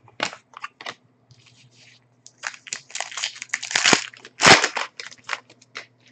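Trading cards clicked and shuffled against each other, then a foil 2008-09 Upper Deck SPx hockey card pack torn open and its wrapper crinkled, the tearing loudest about four and a half seconds in.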